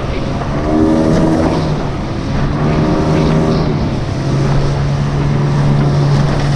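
Outboard motor on a small skiff running under way at speed, a steady drone whose note wavers up and down as the load changes.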